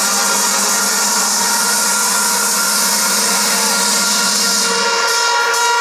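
Loud electronic dance music at a build-up: a hissing white-noise wash over held synth notes. Near the end the bass drops away and sharp percussion hits start coming in.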